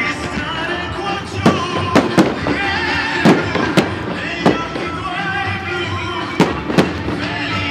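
Firework shells bursting in sharp bangs, about eight of them, some in quick pairs, over loud music from the display's soundtrack.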